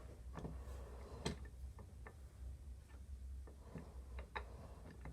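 Bench vise being handled and swivelled on a wooden workbench top: a handful of irregular light clicks and knocks, the sharpest about a second in.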